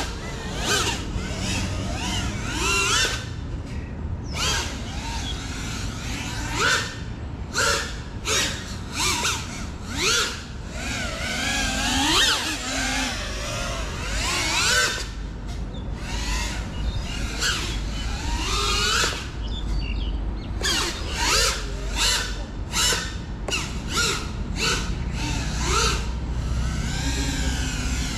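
A GEPRC Cinelog35 cinewhoop's brushless motors and ducted propellers whining in repeated short surges, the pitch rising and falling as the throttle is punched and eased off.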